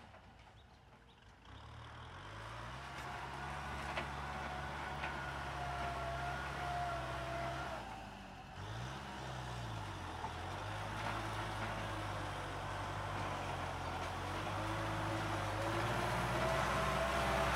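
Kubota M6040SU tractor's diesel engine coming in about a second and a half in and running steadily, with a fainter whine above it. A little past the middle the revs dip briefly and pick up again, and it grows louder toward the end.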